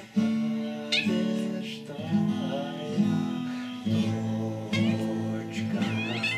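A guitar strumming chords, about one strum a second, while a domestic cat meows along over the music several times with drawn-out, wavering calls.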